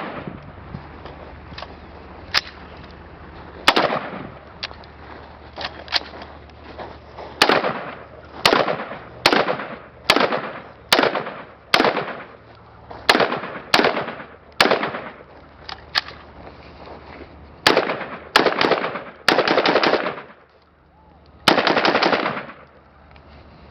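M4 carbine firing single shots at an uneven pace, about twenty in all, each with a short echoing tail, the rifle running again after a misfire clearance drill.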